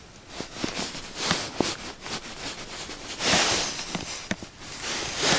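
Close handling noise of an ice-fishing rod and line being worked by hand to free a jig snagged on a submerged branch: a few light clicks and knocks, and a short rustling burst about three seconds in.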